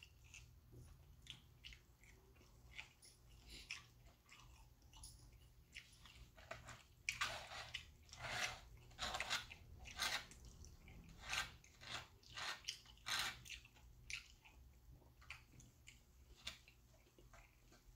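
A person chewing a mouthful of food in irregular bursts, loudest about seven to thirteen seconds in.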